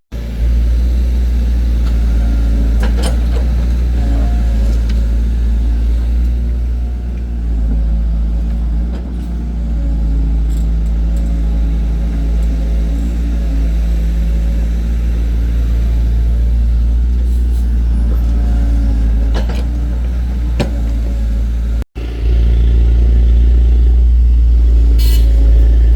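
Heavy earth-moving machine's engine running steadily, with a few short knocks. The sound drops out briefly about 22 seconds in.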